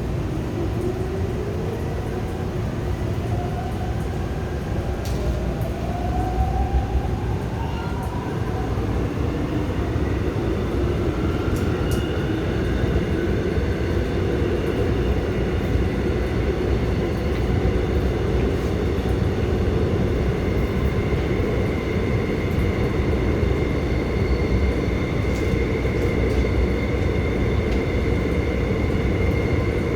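Seoul Subway Line 5 train's traction motors whining up in pitch as it pulls away and accelerates, then settling into a steady high whine over the rumble of wheels on rails.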